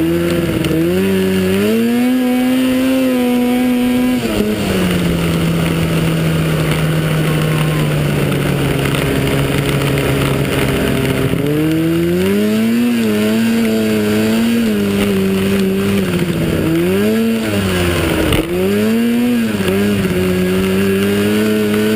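Racing snowmobile engine heard from on board, running at high revs, dropping to a lower steady pitch about four seconds in, then climbing back up around twelve seconds. Near the end it dips sharply twice as the throttle is lifted briefly before picking up again, over a steady rushing noise.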